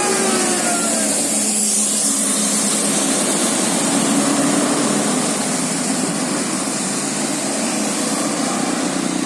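Tour bus engine running, with a steady hiss of road and air noise over it. In the first second a pitched tone slides down in pitch and fades away.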